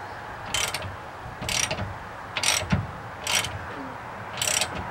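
Ratchet wrench clicking in short bursts about once a second, five strokes, as a bolt is run down and draws the cross member tight against the truck frame.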